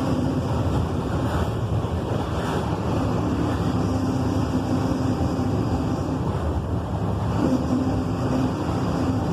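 Volkswagen 17.230 EOD bus's diesel engine running steadily, with a humming tone over the engine noise that fades out twice and comes back.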